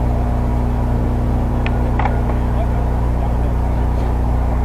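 Steady low hum made of several even, unchanging tones, with two faint clicks about two seconds in.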